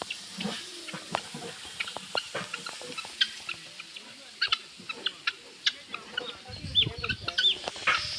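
Chickens clucking, many short sharp calls with a few brief rising-and-falling notes near the end.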